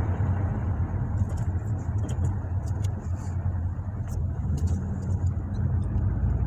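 Ford Mustang GT's 5.0-litre V8 and the road, heard from inside the cabin as a steady low rumble while the car is driven at an even pace, with a few faint clicks.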